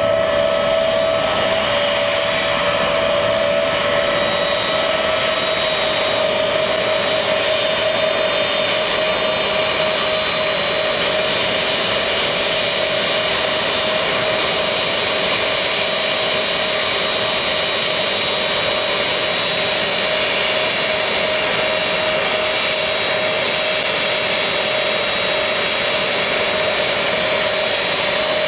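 Lockheed C-5 Galaxy's four turbofan engines running at taxi power: a steady jet whine with a high tone that grows stronger about four seconds in.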